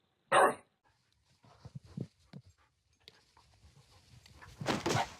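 A dog barking: one loud, short bark just after the start, then softer scattered noises and a louder burst of noise near the end.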